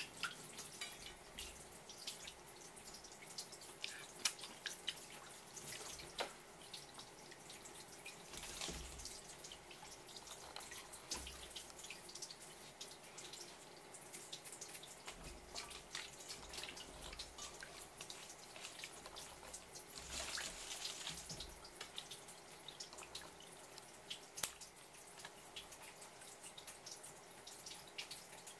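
Hands stirring and lifting raw swimming-crab pieces in a steel bowl of marinade: faint sloshing and dripping of liquid, with many small clicks of shell.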